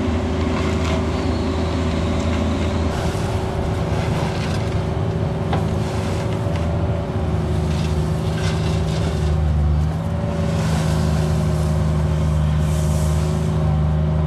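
Cat 304 mini excavator's diesel engine running steadily under hydraulic work, its note shifting about ten seconds in, with intermittent scrapes of the steel bucket working through gravel and dirt.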